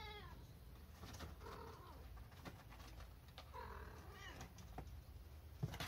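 A cat meowing softly, three short calls a second or two apart, with a sharp knock near the end.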